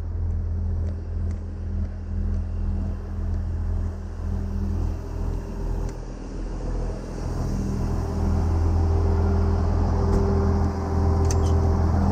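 Heavy engine idling steadily with a low, even hum that grows a little louder about eight seconds in, with a few light clicks near the end.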